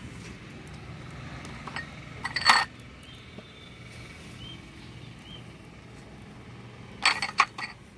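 Glass bowls clinking against each other while ingredients are tipped into a glass mixing bowl: a short burst of clinks about two and a half seconds in and another near the end, over a low steady background.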